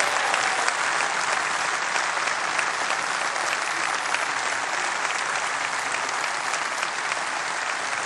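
Large hall audience applauding steadily, a dense, sustained round of clapping.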